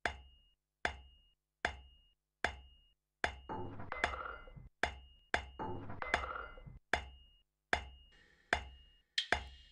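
A steady beat of sharp percussive knocks, a little under one a second, each followed by a short high ring. A denser clattering swell fills the gaps between knocks twice, around the fourth and the sixth second.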